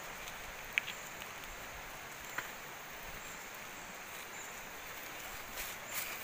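Steady hiss of forest riverside ambience with two short, sharp clicks in the first few seconds, and footsteps crunching on stones and gravel near the end.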